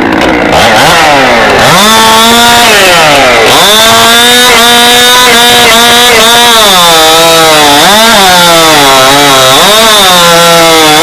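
Stock chainsaw at full throttle, cutting through a log for a competition cut. The engine revs up about two seconds in, then its pitch sags and recovers several times as the chain bites into the wood.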